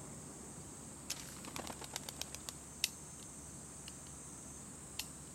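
Steady high buzz of insects in the grass field. About a second in comes a quick run of light clicks and ticks, followed by a few single ticks later.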